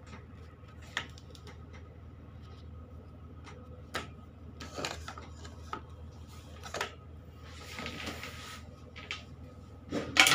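Light knocks, taps and rustles of a cat being held and handled on a grooming table, scattered every second or two, with a louder cluster of knocks near the end, over a steady low background hum.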